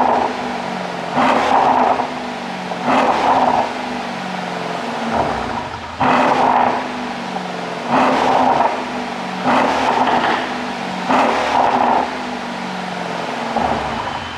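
Mercedes-AMG S63's twin-turbo 5.5-litre V8 being blipped repeatedly in place: about seven short, sharp revs, each dropping quickly back to a steady idle.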